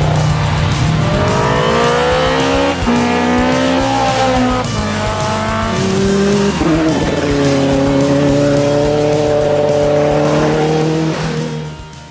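Historic rally car engine revving hard, its pitch climbing and then dropping at each gear change, several shifts in a row, with background music. It all fades out near the end.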